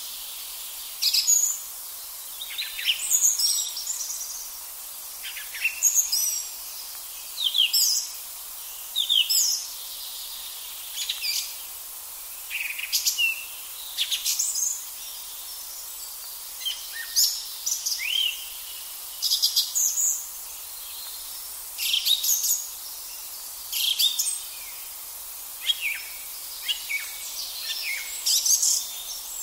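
Song thrush singing: loud, short, varied whistled phrases, one every second or two with brief pauses between, over a steady background hiss.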